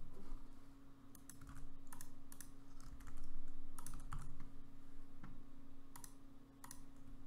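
Computer keyboard keystrokes and mouse clicks, scattered and irregular, over a low steady electrical hum.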